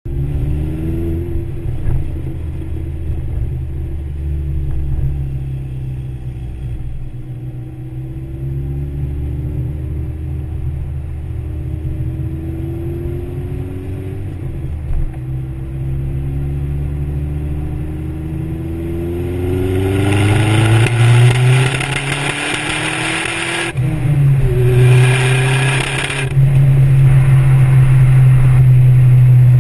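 Vauxhall VX220 Turbo's turbocharged four-cylinder engine pulling hard under boost, revs climbing again and again with sudden breaks as it goes up through the gears. It sounds uneven and rough, which the owner takes for a nasty misfire under boost. It gets louder and harsher about two-thirds of the way through.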